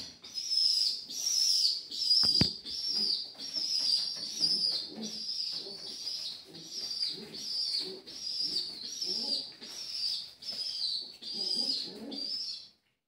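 Young pigeon begging for food from a parent: a high, squeaky peep, falling at the end, repeated about every half second. There is one sharp knock about two seconds in, and the calls stop abruptly near the end.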